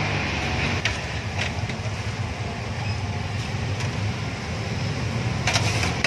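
Deep-fryer oil sizzling over a steady low rumble, with several sharp metal clinks of a wire strainer and utensils against the fryer pot, the loudest near the end.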